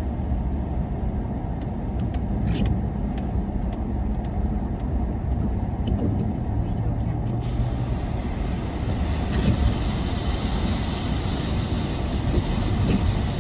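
Car running, heard from inside the cabin: a steady low engine and road rumble. About halfway through, a hiss of water spraying rises as the car drives through standing floodwater.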